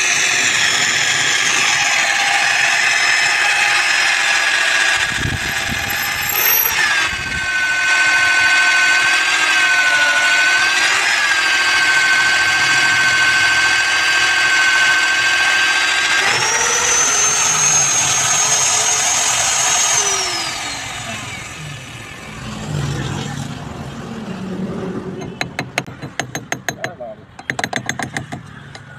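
Magnetic base drill with an annular cutter boring through a steel girder plate: the motor runs with a steady whine under cutting load, its pitch dipping slightly now and then as the feed bears down, then spins down about two-thirds of the way through. Near the end comes a fast series of clicks.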